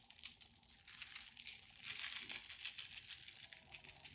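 Shrimp skewers sizzling and crackling on hot pellet-grill grates at about 450°F, with a louder hiss about two seconds in.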